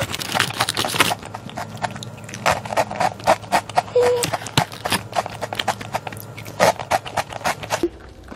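Close-up crunching of a crisp snack being chewed, mixed with the crinkle of plastic snack wrappers being handled, giving many sharp crackles in quick clusters.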